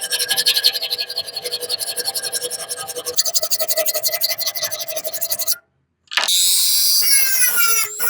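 Rapid back-and-forth scraping on metal, several strokes a second, as a hand tool works the rusty steel of a betel nut cutter. The scraping stops abruptly after about five and a half seconds, and electronic-sounding music with gliding tones follows.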